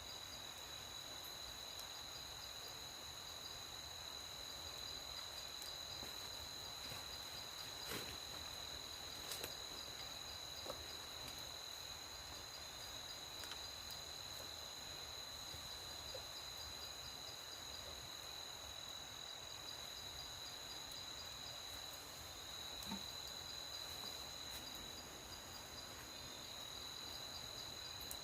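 Night insect chorus: crickets trilling steadily in high, continuous tones. A few faint clicks now and then.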